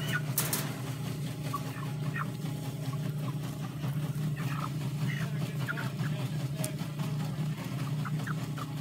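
Chickens clucking in short, scattered calls over a steady low motor hum.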